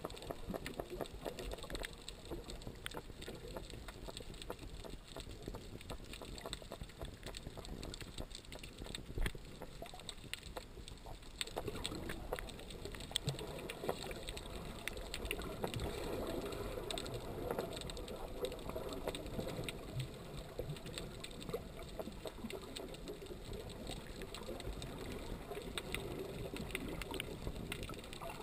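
Underwater sound through a GoPro's waterproof housing: a muffled wash of moving water with a dense crackle of small clicks, growing louder about halfway through.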